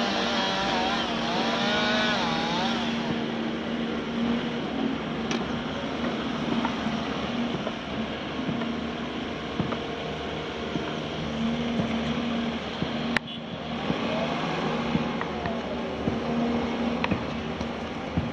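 Caterpillar hydraulic excavator running, its diesel engine a steady drone under a whine that wavers up and down near the start and again near the end, with scattered knocks and one sharp crack about 13 seconds in.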